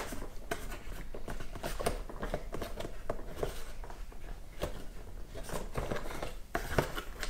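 Cardboard toy packaging being handled while plastic twist-lock fasteners are turned to free a toy car from its backing: many scattered small clicks, scrapes and rustles.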